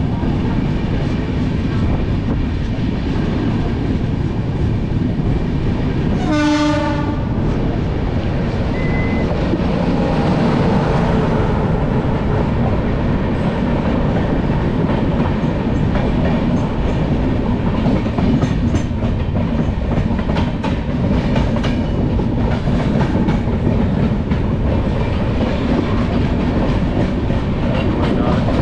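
Passenger train running at speed, heard from aboard: a steady loud rumble and rush of wheels on the rails with some clickety-clack, and one short horn blast about six seconds in, as it crosses a train coming the other way.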